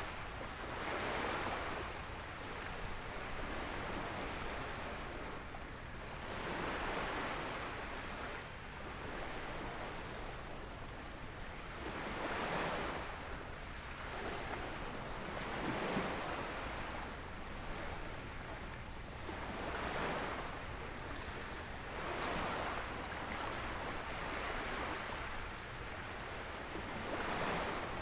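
Small waves breaking and washing on a beach, one surge every few seconds, with a steady low wind rumble underneath.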